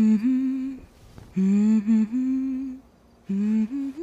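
A woman humming a slow, lullaby-like tune in three short phrases of held notes, with brief pauses between them.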